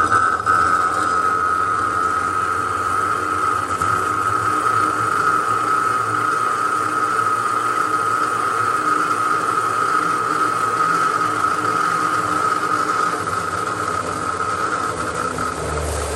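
A 10-inch cold saw blade cutting through a thick pipe, giving a steady high whine over the running motor. The low hum shifts near the end.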